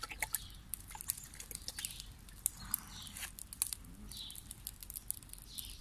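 Hands splashing and dripping in a plastic bowl of water, in many small quick splashes and drips, then rubbed dry on a cloth towel. Birds chirp briefly a few times.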